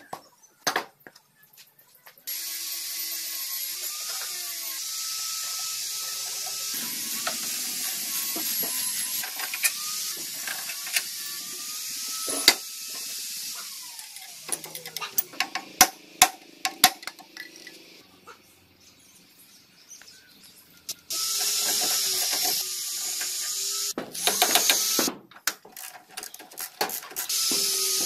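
Ratchet wrench clicking and metal tools knocking as a buggy's rear wheel hub and brake drum are worked on. A steady high hiss runs behind and starts and stops abruptly several times.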